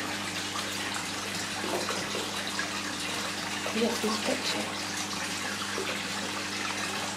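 Water pouring from a pipe outlet into a fish tank, splashing steadily into the surface, over a steady low hum.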